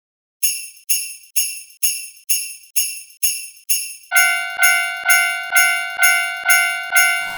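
A Christmas-themed level-crossing warning signal: jingle bells struck in the crossing alarm's rhythm, about two strikes a second, starting after a brief pause. From about four seconds in, a lower ringing tone sounds with each strike.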